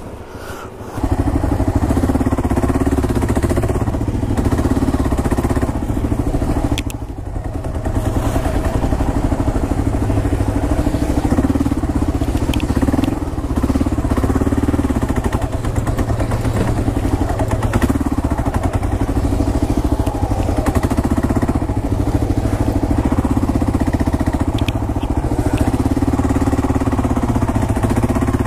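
Kawasaki KLR 650's single-cylinder four-stroke engine running loud and steady, coming in abruptly about a second in and easing briefly about seven seconds in.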